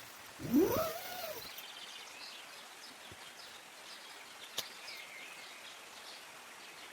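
An animal call that rises and then falls in pitch, lasting about a second, near the start; then faint high bird chirps and a single sharp click.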